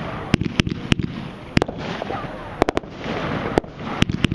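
Brothers Pyrotechnics 'Make My Day' 107-shot firework cake firing: a string of sharp bangs at uneven spacing, with a dense crackle between them.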